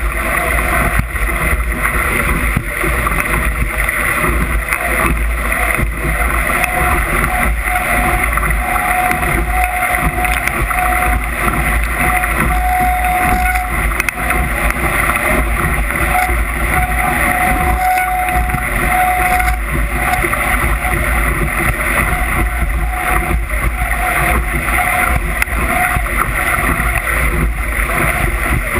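Wind buffeting the microphone over the rush of water past a Musto skiff's hull under sail in gusty wind, loud and steady. A faint, broken high tone comes and goes through the middle.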